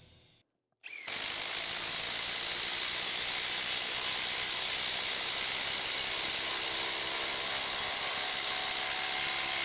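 Bosch IDH182 18 V brushless impact driver hammering steadily as it drives a 5/16 x 6 in structural screw into stacked lumber, starting about a second in.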